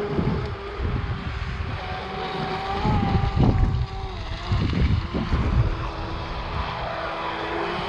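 Electric RC racing boats running on LiPo-powered motors, a steady high whine that dips and rises in pitch as they turn. Wind gusts buffet the microphone several times.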